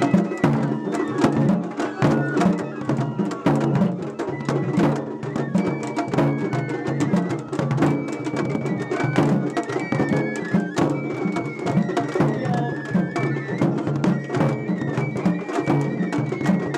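Large taiko drum (ōdaiko) on a festival float beaten by a child with two sticks, a quick, steady run of sharp strokes, against traditional festival music with a high melody line.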